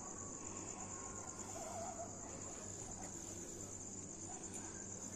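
Night insects chirring in one steady, high-pitched, rapidly pulsing chorus, with a brief faint warbling call about two seconds in.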